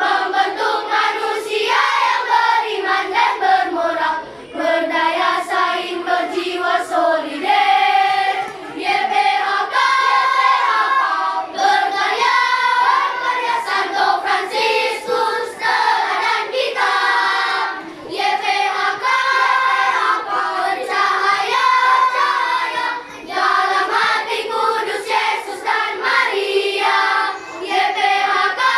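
A children's choir singing the foundation's march song in unison, phrase after phrase with short breaths between them.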